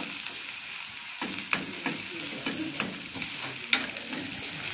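Chopped onions sizzling in hot oil in a metal kadai, stirred with a steel spoon that scrapes and clicks against the pan several times, the sharpest click a little before the end.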